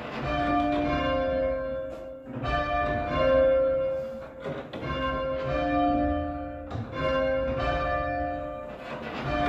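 Two church tower bells rung full-circle by rope from the ringing chamber, striking in steady alternation. Each stroke's tone rings on into the next.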